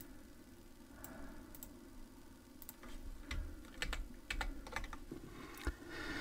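Faint computer keyboard typing: a scattered run of light key clicks, mostly in the second half.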